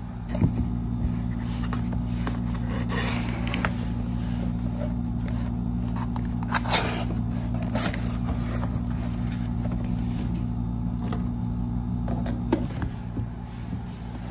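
Cardboard shipping box being opened by hand: flaps pulled apart and cardboard scraping and rustling against the boxed laptop as it slides out, with a few sharp taps and knocks. A steady low hum runs underneath.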